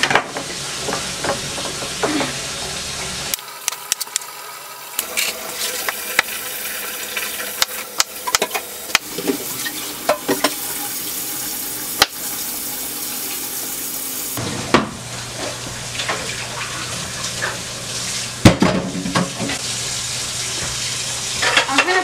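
A kitchen knife chopping zucchini and yellow squash on a wooden cutting board, with scattered sharp knocks of the blade on the board, the loudest near the end. A steady hiss runs underneath.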